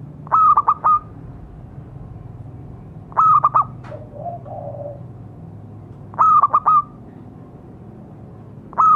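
Zebra dove cooing: a quick, stuttering phrase of four or five short notes, repeated about every three seconds.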